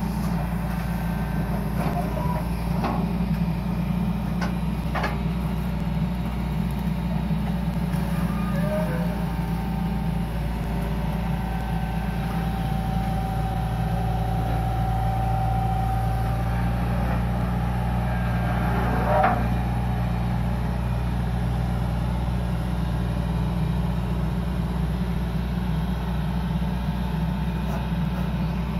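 Hitachi EX120 long-arm excavator's diesel engine running steadily while the arm and bucket work, with a few short clanks near the start, a held higher-pitched whine for a few seconds in the middle, and a brief sharp knock about two-thirds through.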